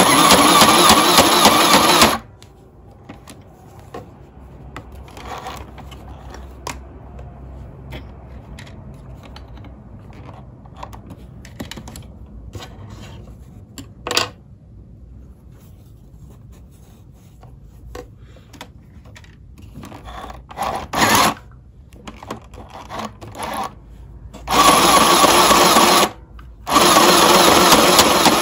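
Compact electric sewing machine stitching in runs: one run of about two seconds at the start, then a long quieter stretch with a few clicks and a brief burst of stitching, then two more runs near the end separated by a short pause.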